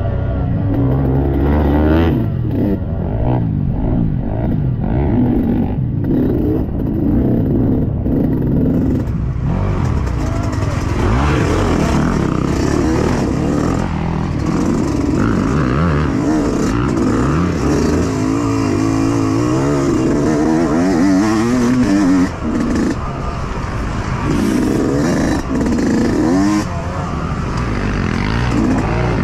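Yamaha YZ125X two-stroke single-cylinder dirt bike engine heard from the rider's position, its pitch rising and falling constantly as the throttle is worked, with a brief dip about three-quarters of the way through.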